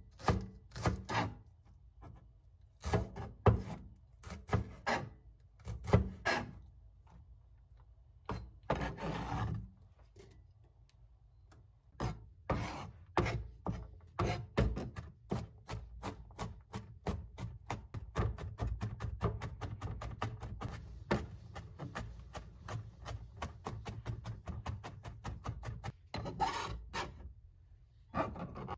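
Santoku knife chopping green onion and garlic on a plastic cutting board. Scattered cuts come first, with a brief scrape about nine seconds in, then fast, even mincing strokes from about twelve seconds in.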